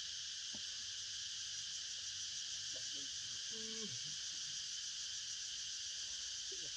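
Steady, high-pitched insect chorus, unbroken and even in level. A faint, brief call sounds in the low range about three and a half seconds in.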